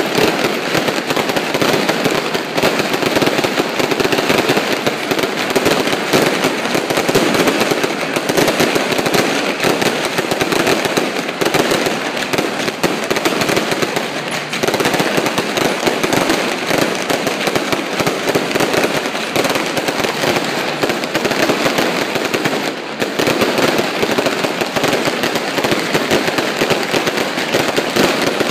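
Fireworks and firecrackers going off in a dense, unbroken rapid crackle of countless small pops, with only brief slight lulls.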